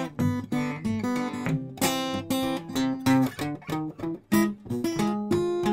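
Background music on acoustic guitar: a run of picked and strummed notes, each struck sharply and left to ring.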